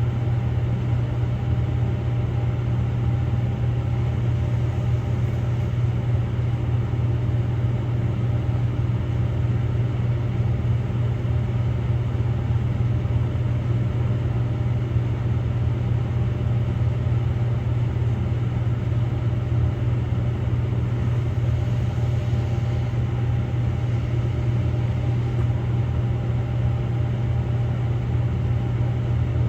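Samsung Grande AI front-loading drum washing machine on a spin-only cycle, its drum spinning steadily with a constant low hum.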